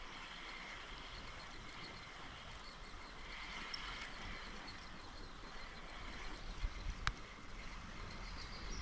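Steady rushing of creek water falling over a small waterfall, with one sharp click near the end.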